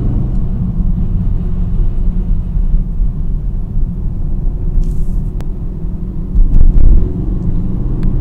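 Car engine and drivetrain running on the overrun in second gear after lifting off the throttle at about 3,000 rpm, with a rattling chatter and a few faint sharp ticks over the low rumble. The rattle follows a new Stage 3 DXD clutch install, and the owner suspects the clutch hydraulic line knocking against the chassis leg.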